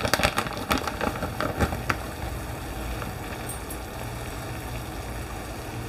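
Tomato-and-vegetable shakshuka sauce sizzling in a nonstick frying pan, with small clicks and pops over the first two seconds, then a steady sizzle.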